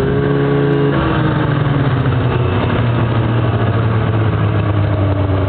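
Snowmobile engine running. Its pitch slides down between about one and three seconds in, then holds steady.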